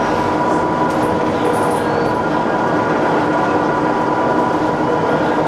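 Dennis Trident double-decker bus on the move, heard from inside the passenger saloon: a steady engine and drivetrain drone with a constant whine that holds one pitch.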